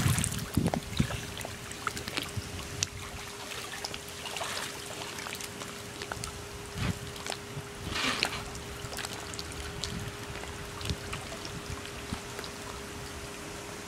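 Water splashing in a backyard above-ground pool, dying down within the first second to gentle sloshing and lapping with small drips, with a couple of brief water rushes midway. A steady faint hum runs under it.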